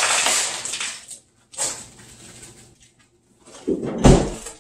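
Protective plastic film being peeled and torn off a stainless steel fridge door: a rustling, tearing hiss in the first second, then a shorter rip. About four seconds in comes a loud thump.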